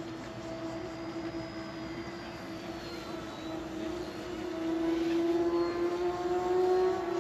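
Eachine E129 micro RC helicopter in flight: its motor and rotor give a steady buzzing whine that wavers slightly in pitch and grows louder about two-thirds of the way through.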